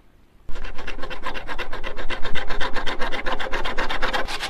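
A hand-held saw blade cutting into PVC pipe in quick, even back-and-forth rasping strokes, starting about half a second in.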